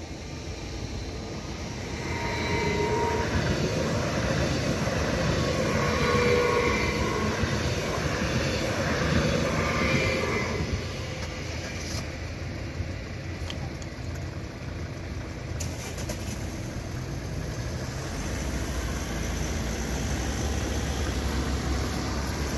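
A train passing over a level crossing: wheel and rail noise swells about two seconds in, with a few wavering ringing tones over it, and dies away after about ten seconds. Near the end a low steady rumble comes in.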